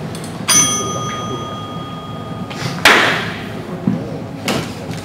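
A bell struck once about half a second in, ringing on for about two seconds. Just under three seconds in comes a loud sharp hit that dies away quickly, followed by two lighter knocks near the end.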